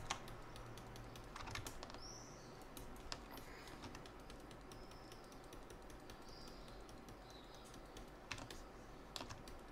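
Faint, irregular clicks of a computer keyboard and mouse being worked, a second or more apart, over a low background hum.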